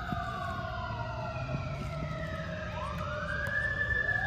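Emergency vehicle siren wailing: a long slow fall in pitch, then a rise back up about three seconds in, cutting off suddenly at the end.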